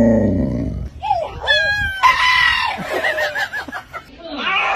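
A dog vocalizing in reply to its owner, the 'talking' sound: a low drawn-out moan that ends about a second in, then a run of higher, wavering whine-like yowls that bend up and down in pitch.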